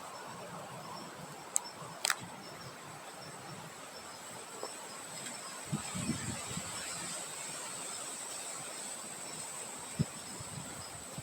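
Outdoor nature ambience: a steady high insect drone with a fainter, regularly repeating chirp, over a soft wind hiss. Two sharp clicks come about two seconds in, and a few low knocks around the middle and near the end.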